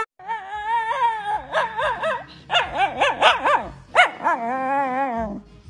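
Shiba Inu dog whining and yelping in a wavering voice: a run of short rising-and-falling yips, then a long whine that drops in pitch near the end. The dog is protesting at having its paw held.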